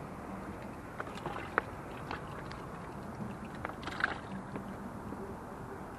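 Sea water washing steadily against the rocks of a shoreline breakwater, with a few light clicks and taps, the sharpest about one and a half and four seconds in.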